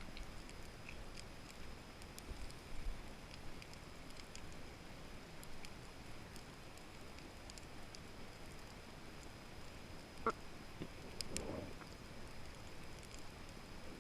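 Faint underwater ambience picked up by a camera in a waterproof housing, with scattered small clicks and crackles throughout. A sharper click comes about ten seconds in, and a short gurgling burst follows a second later.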